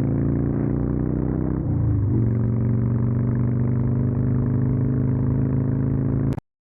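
Car engine running steadily, its pitch dipping and settling again about two seconds in, with little high end to the sound. It cuts off suddenly near the end.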